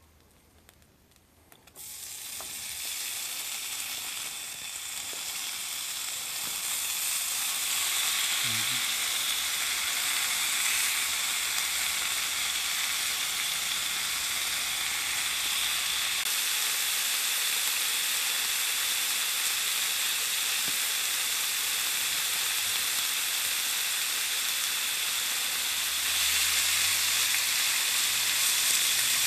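Marinated bulgogi beef sizzling on a hot electric hot plate. The sizzle starts suddenly about two seconds in as the meat is tipped onto the plate, builds over the next several seconds, then holds as a steady loud sizzle while the meat is spread out.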